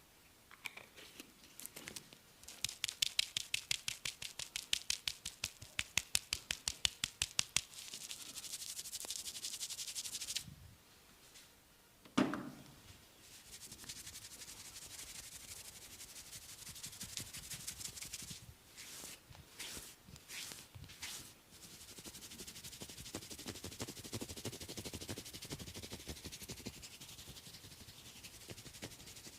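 Hands working on oiled skin: a run of quick, even taps for several seconds, then slick rubbing and swishing, broken once by a single sharp smack.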